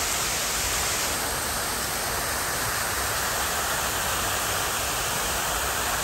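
Fountain water splashing and rushing in a steady, even roar, with a slight change in its tone about a second in.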